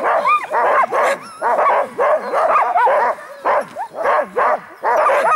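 A team of harnessed husky sled dogs yelping and whining together in many overlapping rising and falling cries: the excited clamour of a sled team waiting to start running.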